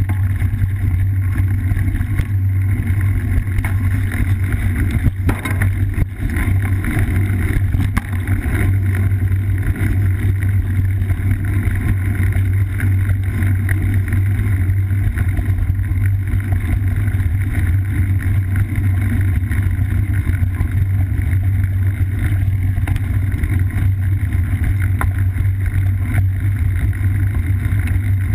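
Riding noise picked up by a GoPro mounted on a cyclocross bike rolling over a dirt forest singletrack: a steady low rumble of wind buffeting and tyre and frame vibration, with scattered knocks and rattles from bumps in the trail.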